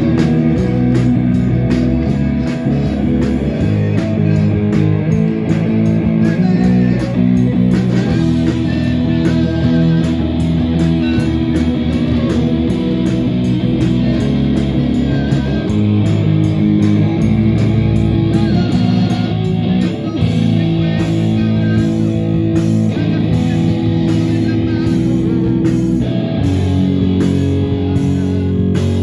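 Live band playing a pop-metal song: electric guitar, bass guitar, keyboard and drum kit, with a steady beat.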